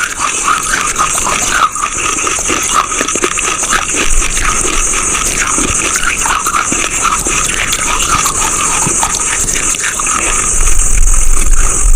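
Close-miked crunching and chewing of chalk: a dense run of irregular small crackles over a steady hiss.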